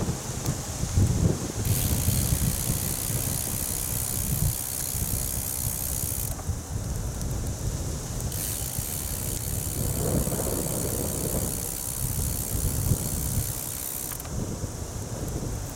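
Bicycle freewheel ticking rapidly in two long stretches while the bike coasts, stopping in between, over wind buffeting the microphone.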